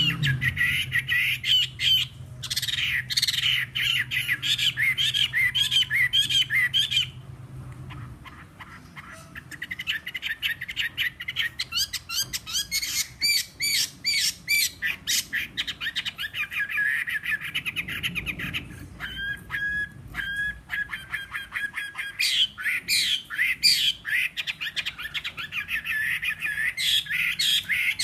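Caged Chinese hwamei singing a long run of fast, varied notes, with a short break about seven seconds in and a few clear whistled notes near the middle. The owner says its voice is slightly hoarse.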